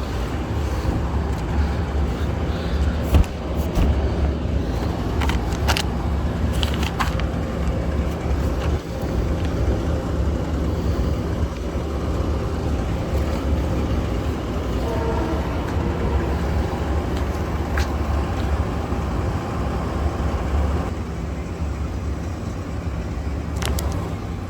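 Heavy diesel engine of the lifting crane running steadily with a low drone, with a few sharp knocks in the first several seconds.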